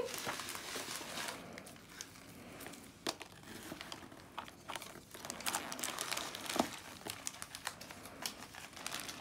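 Plastic food bags crinkling and rustling in irregular bursts with small clicks as a toddler handles packets of dried food in a cardboard box.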